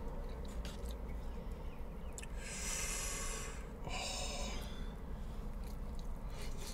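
A man breathes out heavily through his nose twice while eating fried chicken, first a long breath and then a shorter one. A low steady hum runs underneath.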